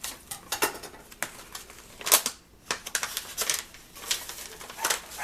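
Paper and packaging crinkling and rustling as mail is opened by hand, an irregular run of sharp crackles and clicks.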